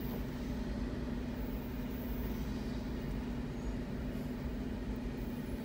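Steady low hum of a car's engine idling, heard from inside its cabin.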